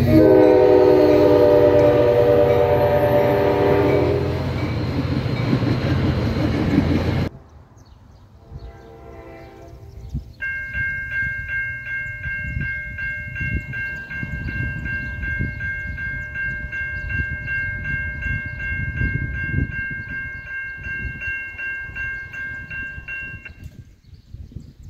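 A train horn blows loud over the rumble of a passing train. After a sudden cut, a level-crossing warning bell rings in an even, rapid pulse as the crossing's lights flash and its gates come down, and stops near the end.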